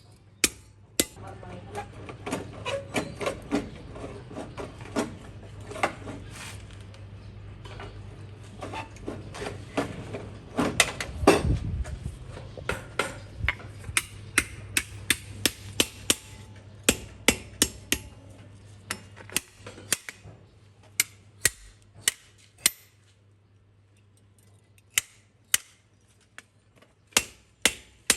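Hammer blows on steel on an anvil while forging a knife: sharp, ringing metal strikes, often one or two a second, with short pauses. A low steady machine hum runs under the first two-thirds and then stops.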